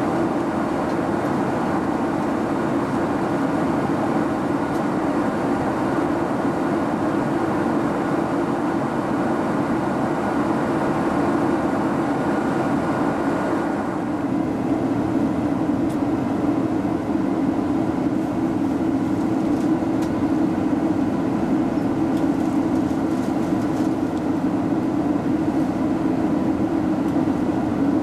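Steady cabin drone inside a Boeing 767-300 airliner in flight: jet engine noise and airflow over the fuselage, a constant low hum. About halfway through, a couple of faint thin tones in it fade out.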